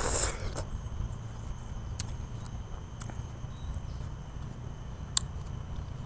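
A short wet slurping bite into a slice of watermelon held in a plastic bag, at the start, then a steady low background rumble with a few faint clicks.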